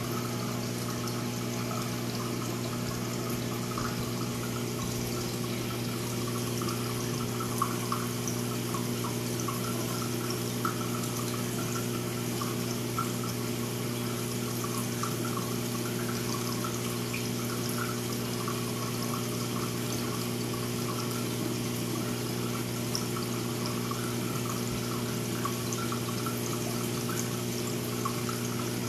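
Water trickling and splashing in a saltwater reef aquarium's circulation, steady throughout, over a constant low hum.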